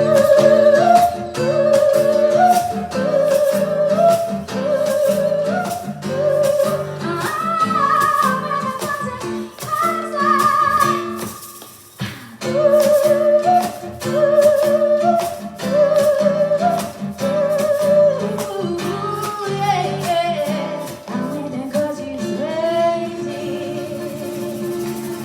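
A live song: a solo singer holding long notes with vibrato over regularly strummed chords.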